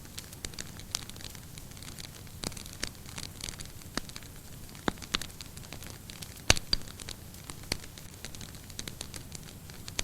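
Wood fire burning in a fireplace, crackling with irregular sharp pops over a steady hiss; one louder pop about six and a half seconds in.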